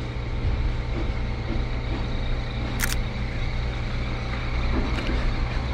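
A motor vehicle's engine running steadily nearby as a low, even hum. About three seconds in, a single click of the Fujifilm camera's shutter is heard as a photo is taken.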